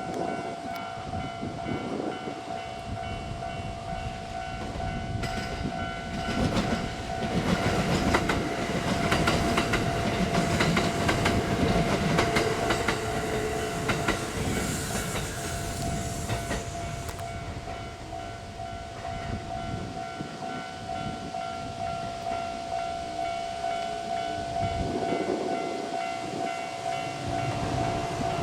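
Japanese level-crossing warning bell ringing steadily while a Kintetsu 12400 series limited express passes over the crossing. The wheels clatter over the rail joints, loudest in the middle, then the train noise eases off with the bell still ringing.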